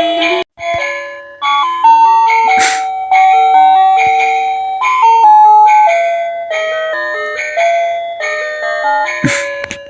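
Tinny electronic Christmas melody played one note at a time in a chime-like tone by a battery-powered animated Christmas decoration's music chip. It breaks off briefly about half a second in, and there is a sharp click near three seconds and another near the end.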